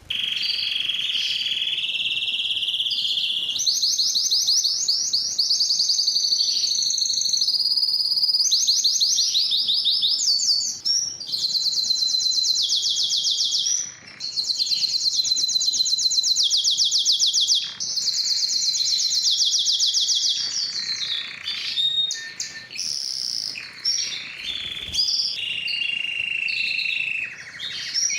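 Spanish Timbrado canary singing a continuous song of fast, rattling trills and rolls, each phrase lasting a few seconds before switching to a new pitch, with a few brief breaks between phrases.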